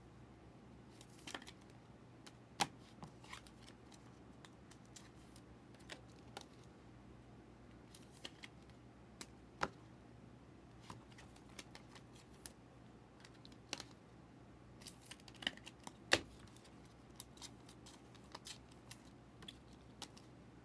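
Scattered small clicks and ticks of trading cards and their packaging being handled, at irregular intervals, over a low steady hum.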